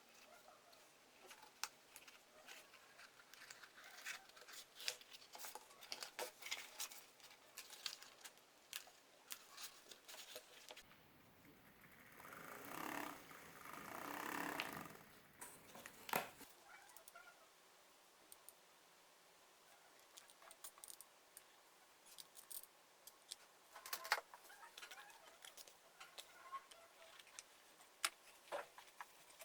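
Scattered light clicks and taps of small parts and cardboard being handled during craft work, with a few seconds of rustling, scraping noise about halfway through that swells twice.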